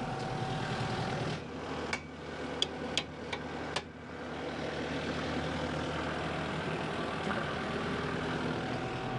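Kubota M5-091 tractor's four-cylinder diesel engine idling steadily, heard from inside the open cab. A few sharp clicks and knocks sound between about two and four seconds in.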